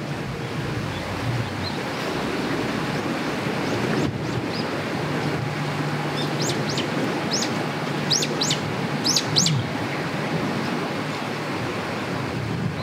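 Steady wash of sea surf with wind on the microphone. About halfway through, a bird gives a run of several quick, high chirps lasting a few seconds.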